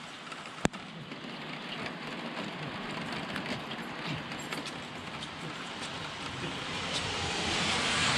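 Steady rain falling on a wet street, with scattered light ticks and one sharp click about half a second in. The hiss grows louder near the end.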